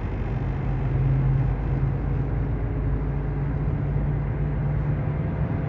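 Dodge Avenger front wheel hub bearing giving a steady low drone while the car is driven, like an airplane overhead, over tyre and road noise. The hum is the sign of a worn front hub bearing, which the mechanic places on the driver's side.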